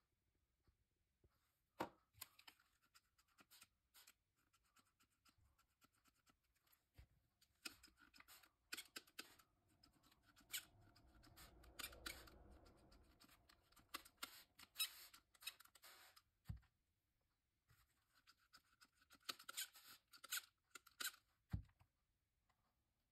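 Faint, scattered scratching and clicking of a metal palette knife scraping into thick acrylic paint on a painting panel, then a hand-held plastic spray bottle spritzing the surface in a quick cluster of squirts near the end.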